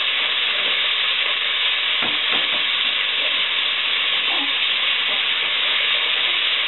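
Chopped collard green stems sizzling in olive oil in a pot: a steady hiss, with a few light knocks about two seconds in as they are stirred.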